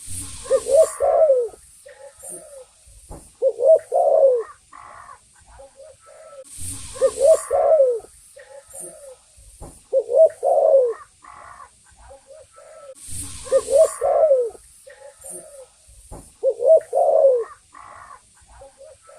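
Spotted dove (tekukur) cooing its song, a short phrase of several low coos repeated about every three seconds. A brief rush of noise comes with every other phrase.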